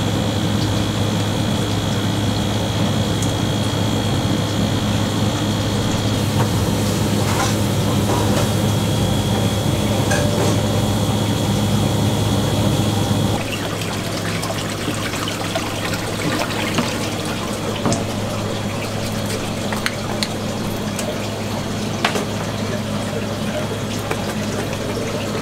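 Live-fish holding tank running: steady water flow with the low hum of its circulation pump. A few faint knocks sound in the second half.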